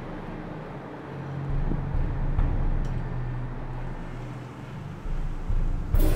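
Street ambience: a low traffic rumble with a steady low hum through the middle, then a sudden loud hit near the end.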